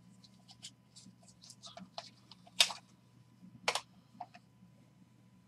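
Light clicks and scrapes of a white cardboard box being slid open and a hard plastic card case handled, the sharpest clicks a little past halfway, over a faint steady low hum.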